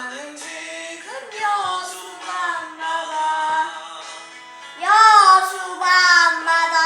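A young child singing a slow Korean pop ballad, sung phrases with long held notes, the loudest phrase starting about five seconds in.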